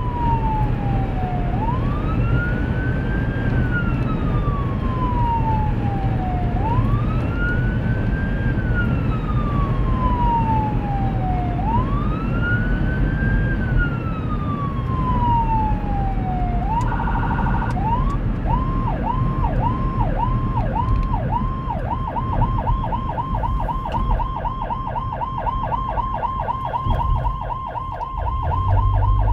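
Whelen 295SL100 electronic siren through dual 100-watt speakers, sounding a slow wail that rises and falls about every five seconds, three times. About seventeen seconds in, a one-second steady blast cuts in, then the siren switches to yelp, its sweeps speeding up to about four a second. Steady road and engine noise lies underneath.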